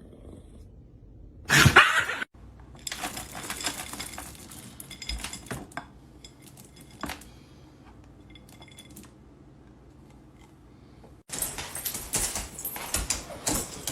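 Clinking and clattering of dishes or metal ware in several spells. The loudest spell comes about two seconds in, and another starts near the end. The sound cuts off abruptly between spells.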